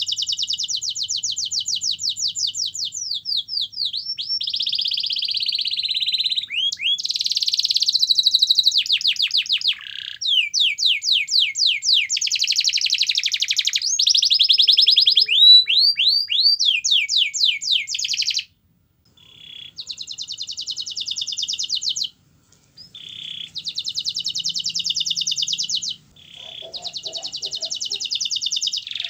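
Domestic canary singing a long, continuous song of fast trills and rolling notes, with runs of quick downward-sweeping whistles. It breaks off briefly twice in the second half.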